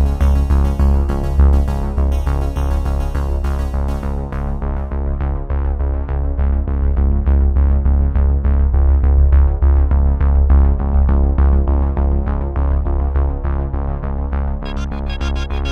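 Electronic synthesizer music with a steady beat and a strong bass line. About a third of the way in the treble is filtered away, leaving a muffled sound, and it sweeps back in near the end.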